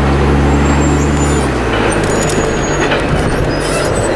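Double-stack container freight train rolling past close by: a steady rumble and clatter of steel wheels on the rails, with a few short, high wheel squeals. A low drone underneath fades out about a second and a half in.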